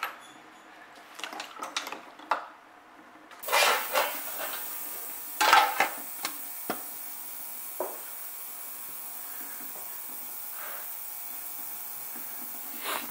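A stainless-steel lid clatters as it is set onto an ultrasonic parts cleaner's tank, with a couple of lighter clicks after. From a few seconds in, the ultrasonic cleaner runs with a steady hiss.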